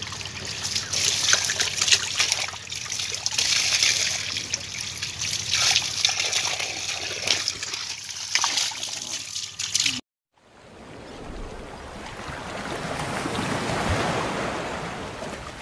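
Water gushing from a hose into a wicker basket of live magur catfish, splashing and trickling with many small splashes, over a steady low hum. About ten seconds in it cuts off, and after a moment of silence a smooth rush of noise swells and fades.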